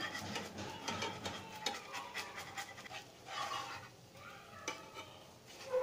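Spatula scraping under a crisp rava dosa on a nonstick tawa, working it loose from the pan: a run of short, quick scrapes that thins out after about three seconds.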